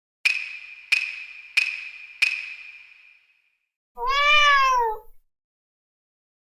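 A small bell struck four times, each strike ringing at one bright tone and fading, then a cat's single drawn-out meow that rises and falls in pitch. Another bell strike comes right at the end.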